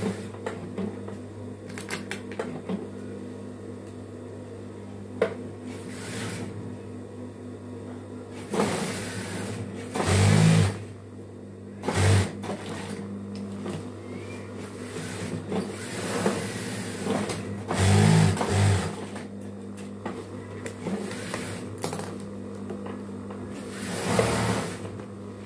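Industrial lockstitch sewing machine: its motor hums steadily while the garment is stitched in several short, louder bursts. Scattered light clicks and rustles come from the satin fabric being handled and turned between runs.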